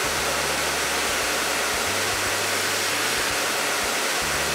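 Oxy-acetylene cutting torch burning with the cutting-oxygen lever pressed: a steady hiss of the flame and the oxygen jet from the cutting tip while the flame is adjusted for cutting.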